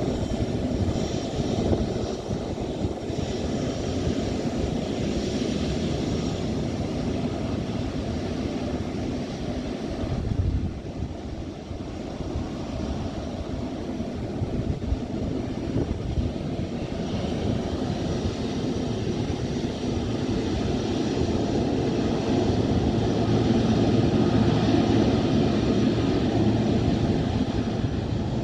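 Boeing 777-300ER's GE90 turbofan engines running at taxi power as the airliner taxis and turns, a steady jet rumble that grows louder near the end.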